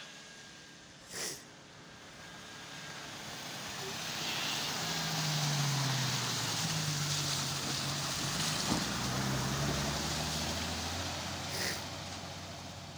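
Old Toyota Land Cruiser SUV driving past on a snowy, slushy road. The engine grows louder as it comes close, its note rising and falling a few times over the hiss of tyres, then eases off as it pulls away. A short knock about a second in.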